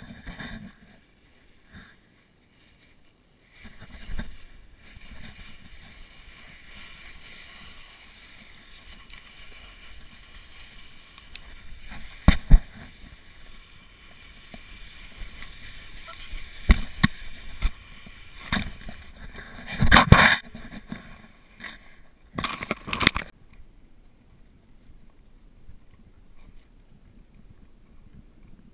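Rushing hiss of a person glissading down a snowfield on a black plastic garbage bag, the plastic scraping over the snow, with several loud thumps and scrapes as it bumps along, the loudest about two-thirds of the way in. The sliding stops suddenly near the end.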